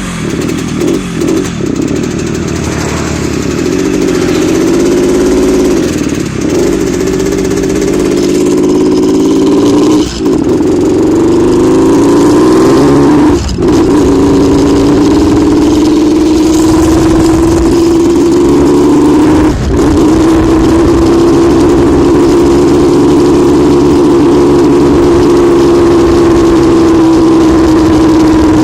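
Yamaha RX-King motorcycle's single-cylinder two-stroke engine held at high revs, its pitch wavering and slowly climbing, with a rough, snoring note ('ngorok'). The revs dip briefly a few times, at about 6, 10, 13 and 19 seconds in.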